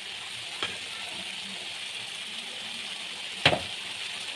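Ridge gourd and potatoes frying in oil with a steady sizzle, as poppy-seed paste goes into the pan. A metal utensil knocks against the pan twice: lightly under a second in, then loudly about three and a half seconds in.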